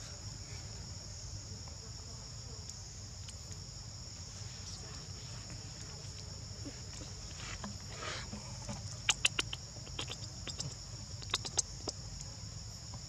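A steady, high-pitched drone of insects, crickets or cicadas, runs throughout. A quick cluster of sharp clicks comes about nine seconds in, and another about eleven and a half seconds in.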